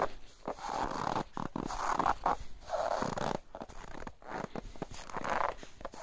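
Footsteps crunching on packed snow at a steady walking pace, about one step a second.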